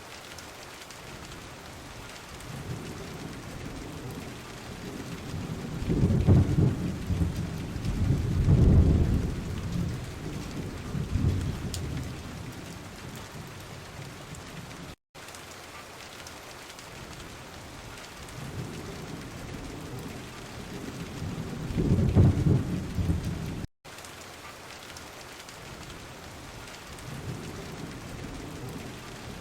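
Steady rain falling, with long low rolls of thunder building several seconds in and again about two-thirds of the way through. The sound drops out for an instant twice, where the recording is spliced.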